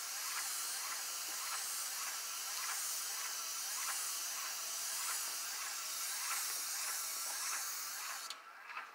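Paint spray gun hissing steadily as it sprays paint onto a door, then cutting off suddenly near the end.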